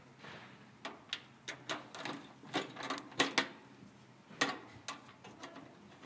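A nut driver clicking and scraping on the screws of an outdoor air conditioner condenser's sheet-metal access panel: a string of sharp, irregular clicks and taps.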